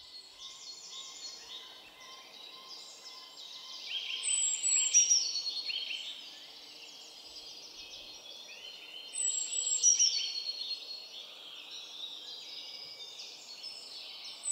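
A songbird singing the same phrase over and over, about every five seconds. Each phrase is a thin high note followed by a run of quick notes falling in pitch.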